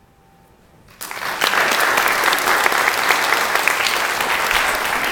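The last notes of a grand piano fade out, then about a second in an audience starts applauding, and the clapping carries on steadily.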